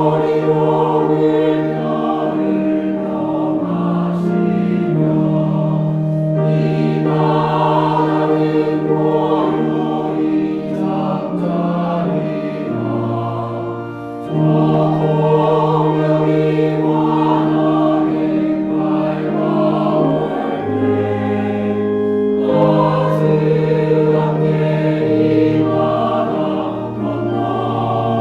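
Church choir singing a Korean hymn in parts, with organ and piano accompaniment; held bass notes change every few seconds, and there is a brief breath between phrases about halfway through.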